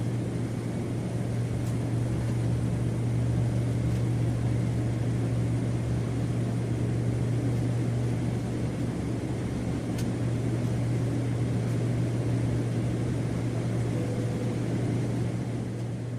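Passenger airplane in flight: a steady drone, a constant low hum under an even rushing noise, unchanging throughout.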